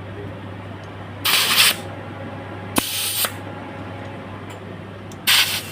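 Three short bursts of compressed air hissing as air is blown at a bicycle tyre that will not take or hold it, over a steady low hum. There is a sharp click at the start of the second burst.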